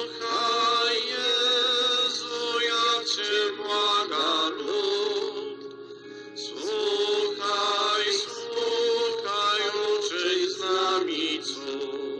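Chant-like church singing: sung phrases over sustained held tones, with short pauses between phrases about six seconds and ten seconds in.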